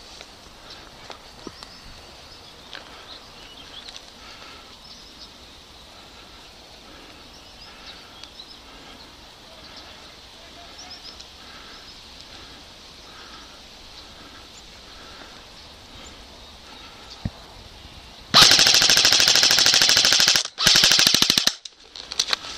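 An airsoft gun firing fully automatic: two long, rapid bursts close by, about 18 seconds in, separated by a brief pause. Before that, only a quiet outdoor background.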